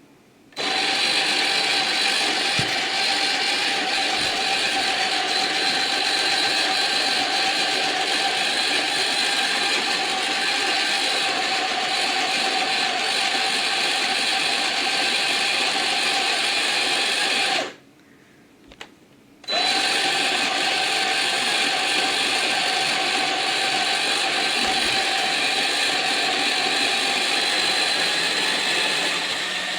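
Ollygrin electric conical burr coffee grinder's motor running steadily as it grinds coffee beans, a constant whine. It stops for about two seconds a little past the middle, then starts again.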